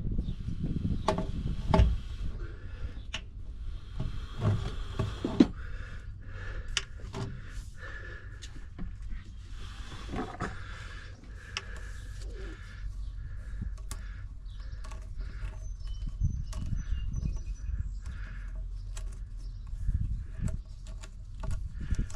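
Scattered knocks and clicks of PVC drain pipe and fittings being handled and worked into place, over a steady low rumble, with birds chirping faintly in the background.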